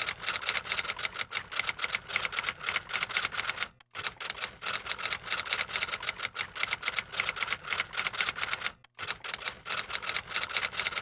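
Typewriter sound effect: rapid keystroke clicks in steady runs. It breaks off briefly twice, about four and nine seconds in.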